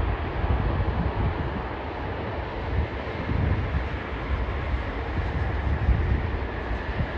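Airbus A380's jet engines running at low taxi power: a steady low rumble with a faint whine over it.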